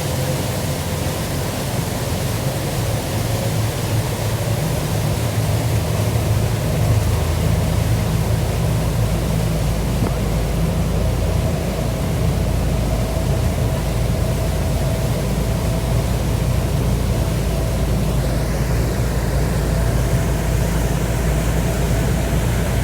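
Steady low drone of a passenger ferry's engines underway, with a constant rushing noise over it and a faint steady hum.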